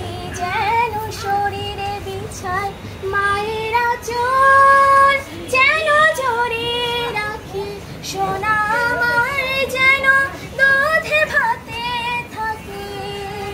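A high voice singing a melody without accompaniment, with several long held notes and gliding phrases.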